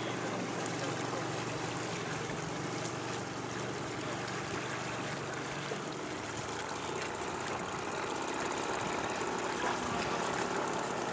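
Steady rush of water and wind around a boat under way, with a low motor hum underneath that fades out about halfway through.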